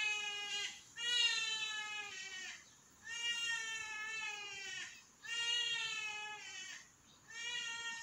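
A flock of trumpeter hornbills calling: a run of long, child-like wailing screams, about five in a row, each lasting one to two seconds with short pauses between them.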